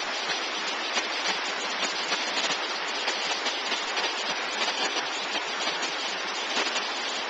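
Brook in flood, a steady rush of white water pouring over rocks and under a footbridge.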